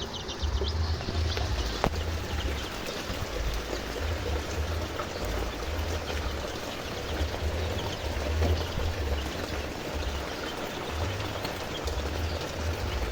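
Steady hiss of rain, with young chicks peeping faintly now and then and an irregular low rumble on the microphone.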